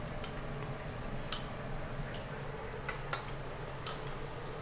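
A metal spoon clinking lightly and irregularly against a small ceramic bowl, about eight clinks, as a sauce is stirred in it, over a steady low hum.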